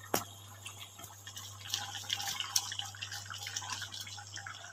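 Chicken curry simmering in an aluminium kadai, small bubbles popping in soft, irregular clicks, with one sharper tap just after the start. A low steady hum runs underneath.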